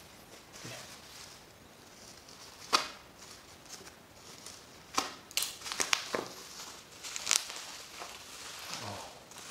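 A knife slitting packing tape and plastic wrap on a parcel, with plastic crinkling and tearing and several sharp snaps. The loudest snap comes about three seconds in, and a cluster follows between five and six seconds in.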